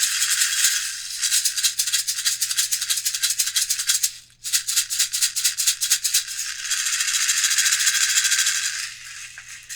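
3D-printed shakers with beads inside, shaken in quick rhythmic strokes, stopping briefly about four seconds in and then going into a smoother, more even rattle that fades near the end.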